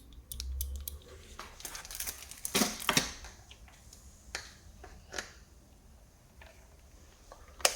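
Light clicks and rustling from handling a new plastic push-button switch and its cover, with a cluster of louder clicks about two and a half seconds in and a sharp click near the end.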